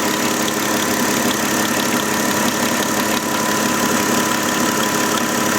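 Volkswagen Touareg engine idling steadily, with a steady high whine and a faint regular ticking on top.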